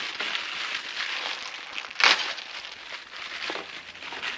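Packaging rustling and crinkling as it is handled and searched through, with one sharper, louder rustle about two seconds in.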